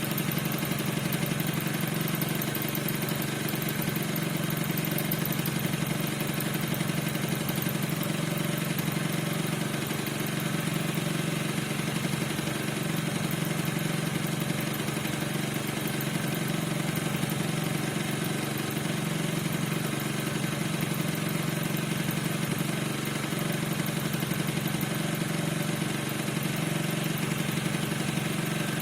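Piaggio NRG 50 scooter's 50 cc two-stroke engine idling steadily, with a squeak whose cause the owner cannot find.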